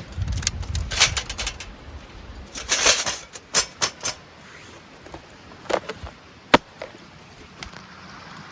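Irregular sharp clicks and knocks mixed with short bursts of rustling, as of objects being handled, with a single sharp click about six and a half seconds in.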